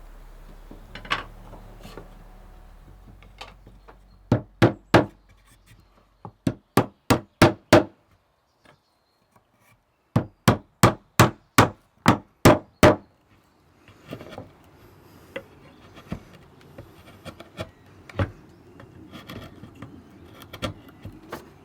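Hand hammer blows on wood, coming in three quick runs of evenly spaced strikes at about three a second. Near the end they give way to softer scraping and rubbing of wood with light knocks.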